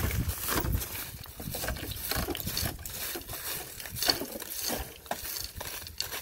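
Bundle of dry, uprooted weeds rustling and crackling as it is handled and dropped, with sandaled steps crunching on gravel.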